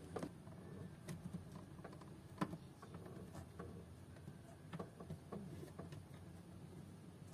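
Faint, irregular light clicks and taps of the plastic door-trim clips and trim panel being handled, with one sharper tap about two and a half seconds in.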